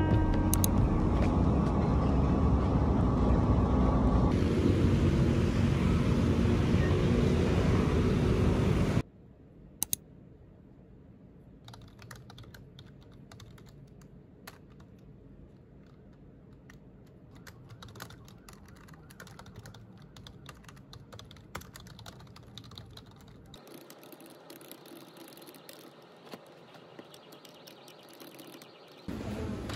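A loud, dense stretch of sound cuts off abruptly about nine seconds in. It is followed by typing on a low-profile computer keyboard: quiet, irregular key clicks.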